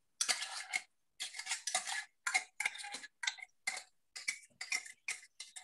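A spoon stirring a pasta salad in a large steel pan, making short scraping, clinking strokes about two a second. Heard over a video call that cuts to silence between strokes.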